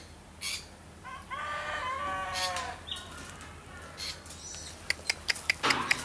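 A rooster crowing once, a call about two seconds long starting about a second in, followed near the end by several short sharp clicks.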